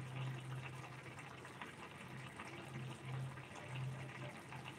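Egg curry gravy simmering in a pan, a steady crackly bubbling, with a low steady hum underneath.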